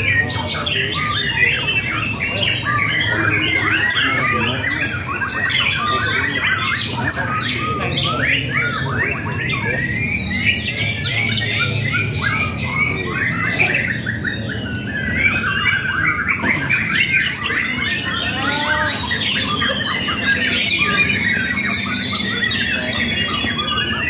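Several caged contest songbirds singing at once: a dense, unbroken tangle of rapid chirps, trills and whistled phrases overlapping one another.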